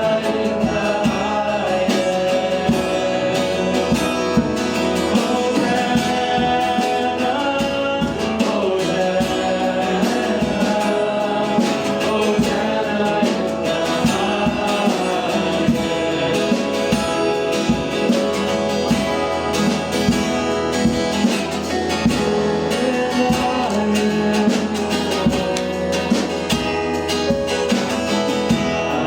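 Church worship music: a band playing with guitar and a steady beat while voices sing.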